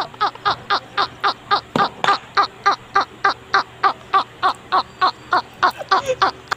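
Loud, high-pitched laughter from an edited-in laughing-meme clip: a steady run of short 'ha' sounds, about four a second, each falling in pitch, stopping just before the end.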